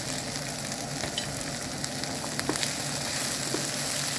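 Onion, garlic and pepper paste sizzling in a hot non-stick frying pan as chickpeas are tipped in and stirred with a wooden spoon. A steady frying hiss with scattered short crackles and spoon knocks.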